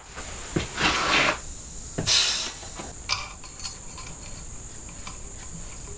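Steady high-pitched insect chorus trilling, with two short noises about one and two seconds in.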